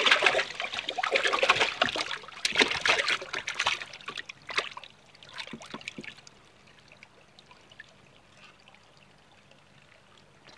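Water splashing and sloshing in a shallow plastic measuring bowl as a koi held down by hand thrashes. The splashing is heaviest in the first four seconds, trails off into a few drips and trickles, and is faint after about six seconds in.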